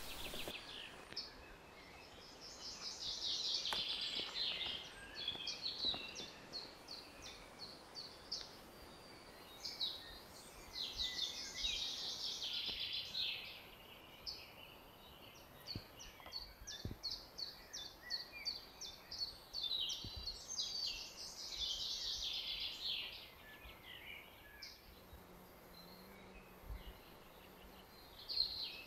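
Songbirds singing: phrase after phrase of quick, high repeated notes, several songs overlapping, over quiet background noise.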